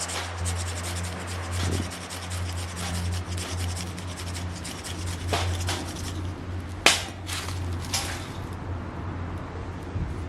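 Wood being scraped and rubbed, with many small clicks and two sharper snaps about seven and eight seconds in, over a steady low hum.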